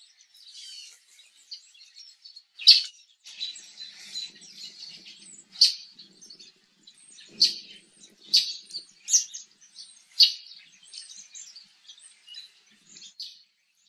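Songbirds calling: steady high twittering, cut through by about six loud, sharp call notes spaced every second or so.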